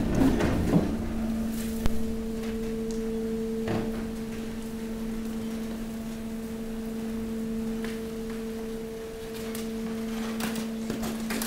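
Hydraulic waste compactor press running with a steady hum from its pump, which settles in about a second in after some clatter. A single knock comes near the middle, and a few rattles near the end as the rubbish shifts.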